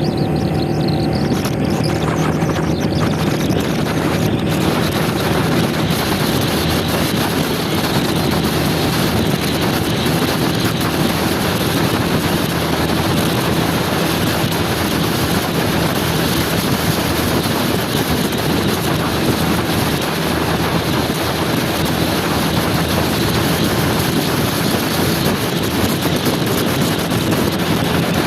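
Motor scooter running steadily on the road. About four seconds in, a steady rush of wind on the microphone rises and largely covers the engine.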